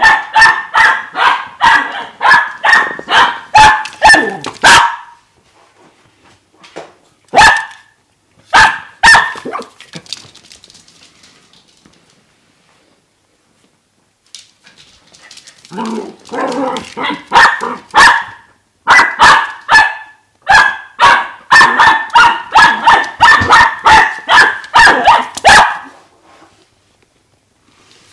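Dachshund puppy barking excitedly in quick runs of sharp barks, about two a second. A long run at the start, a few single barks, a pause of several seconds, then another long run that stops shortly before the end.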